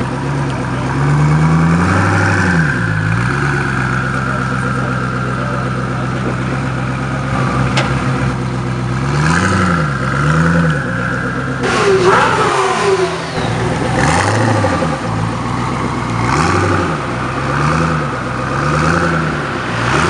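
Koenigsegg Agera R's twin-turbo V8 idling and blipped again and again, each short rev rising and falling back within about a second. The sound changes abruptly about halfway through, and the blips then come in quicker succession.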